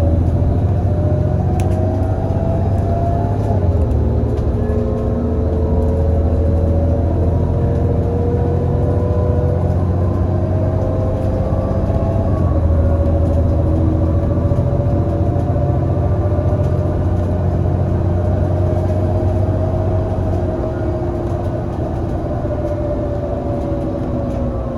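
Iveco Cursor 8 six-cylinder CNG engine and ZF Ecomat automatic gearbox of an Irisbus Citelis 18 articulated bus under way, a low rumble under a whine. The whine climbs slowly in pitch and steps back down twice, about four and about twelve seconds in, as the gearbox upshifts, then holds steady and falls away near the end as the bus eases off.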